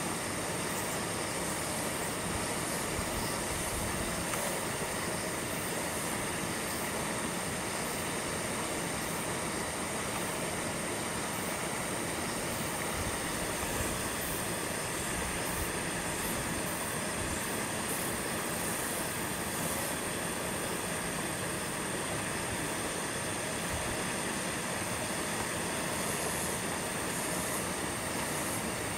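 Steady rushing background noise at an even level throughout, with a thin high-pitched whine running through it.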